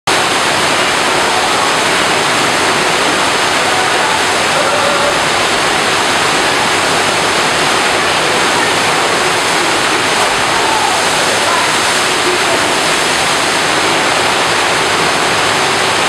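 FlowRider surf simulator: a pumped sheet of water rushing up and over the padded wave ramp in a loud, steady rush.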